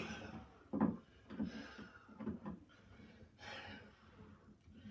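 Scattered knocks and clicks of hardware and hand tools being worked on a plastic kayak hull, with heavy breathing.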